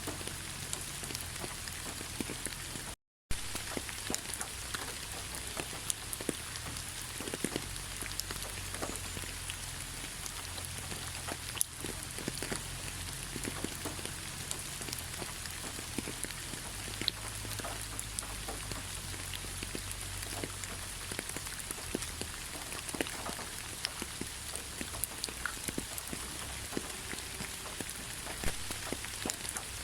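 Steady rain, with many individual drops ticking sharply on a surface. The sound cuts out to silence for a split second about three seconds in.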